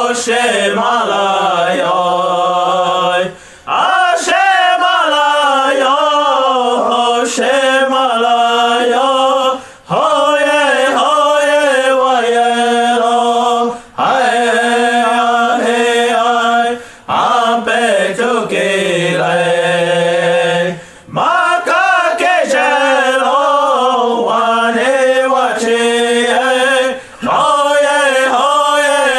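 Lakota/Dakota prayer song, chanted in phrases of a few seconds each with brief pauses between them; the pitch sways and glides within each phrase.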